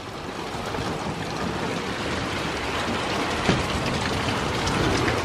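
Heavy rain pouring in a severe thunderstorm, mixed with wind, as a steady rushing noise that grows gradually louder, with scattered small taps of drops striking nearby surfaces and one sharper tap about three and a half seconds in.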